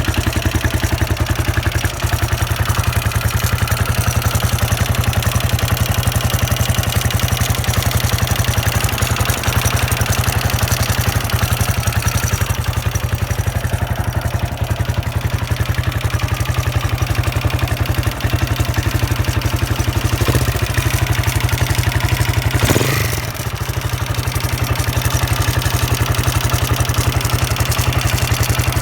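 Husqvarna SM 610's single-cylinder four-stroke engine, fitted with a Keihin FCR 41 carburettor, running steadily at idle with an even stream of firing pulses. About 23 s in there is one short swell in loudness followed by a brief dip, then steady running again. The owner questions whether this engine sound is strange.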